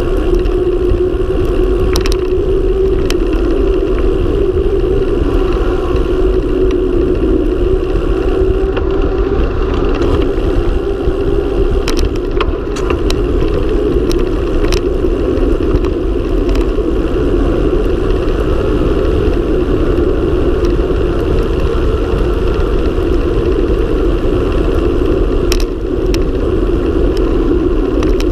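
Mountain bike descending fast on asphalt: steady wind rush on the microphone with a tyre hum, and a few sharp clicks and knocks from the bike scattered through.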